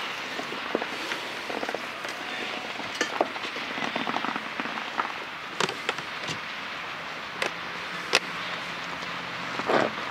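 A long train of open freight wagons rolling past at a distance: a steady hiss of wheels on rail with irregular clicks and clanks from the wagons, the loudest clank near the end.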